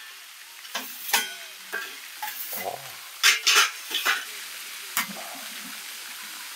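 Stainless steel camping wood stove parts and flue pipe sections being handled: a series of light metallic clinks and knocks, loudest in a cluster about three seconds in, over a steady hiss.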